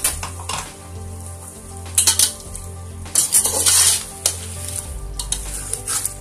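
Chicken pieces and freshly added ground spice masala sizzling in hot oil in a metal pot, stirred with a spatula that scrapes the pot, with loud noisy bursts about two seconds in and from about three to four seconds in.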